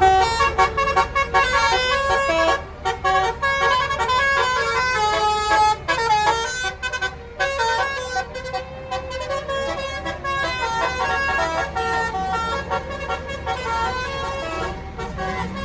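Bus-mounted Basuri multi-tone telolet horn playing a fast tune, its notes changing several times a second with a few short breaks.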